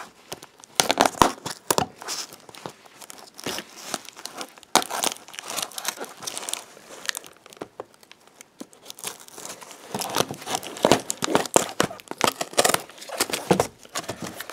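Plastic packing tape on a cardboard box being slit with a knife and picked and peeled loose: irregular crinkling and tearing, busiest about ten seconds in.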